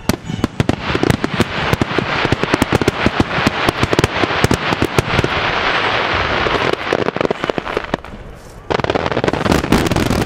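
Starmine fireworks barrage: dozens of aerial shell bursts going off in quick succession, the bangs running together over a continuous hiss. About eight seconds in the bangs die down briefly, then another dense volley starts.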